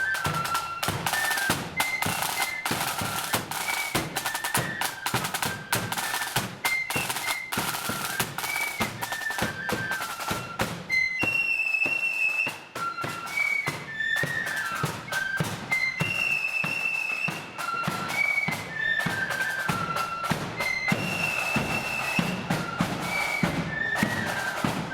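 Marching flute band playing a tune: flutes carry a high, stepping melody over dense snare drumming and bass drum. The drumming drops back briefly under a held high note about twelve seconds in.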